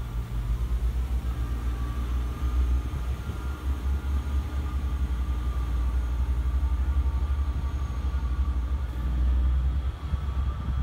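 Class 158 diesel multiple unit pulling away from the platform, its underfloor diesel engines running under power with a steady low rumble and a faint whine above it.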